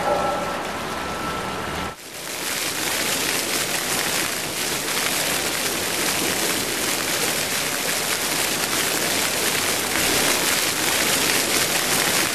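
Steady hiss of falling or splashing water, starting abruptly about two seconds in.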